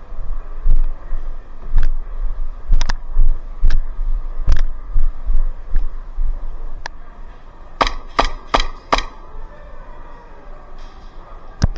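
Airsoft gunfire: scattered single sharp snaps, then a quick string of four shots about eight seconds in. Low thumps and rustling from the player's movement on the body-worn mic run under them.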